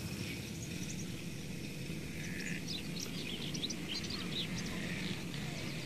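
Small birds chirping in many short, scattered calls over a steady low background rumble.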